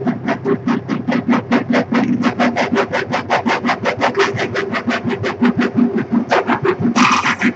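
Live electronic music played on the Sonocyb 3D-printed exo-hand synthesizer controller: a fast, even pulse of about seven hits a second over a sustained low synth tone, with a brighter, hissier burst near the end.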